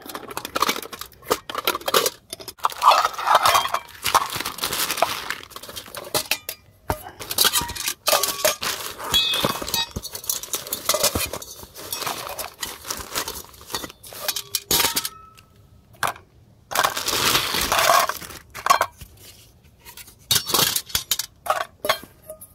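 Plastic bag crinkling and rustling in several bursts, with aluminium pots and parts of a Trangia spirit-stove cook set clinking and knocking together as it is unpacked and assembled.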